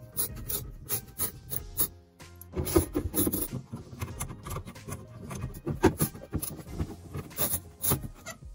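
Hand tools working loose the screws on a car's rear bumper: irregular clicks, knocks and scraping of a screwdriver and a ratchet wrench against metal and plastic.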